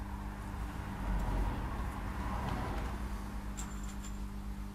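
Handling noise from fitting the main bearing caps and thrust washers onto an A-series 1098cc engine block: rustling and light metal contact, loudest from about one to two and a half seconds in, with a light metallic clink about three and a half seconds in. A steady low hum runs underneath.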